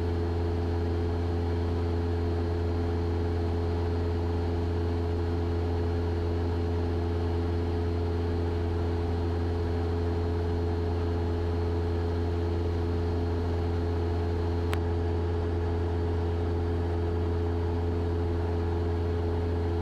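Cessna 172's piston engine and propeller droning steadily in cruise, heard inside the cockpit, with a single brief click about fifteen seconds in.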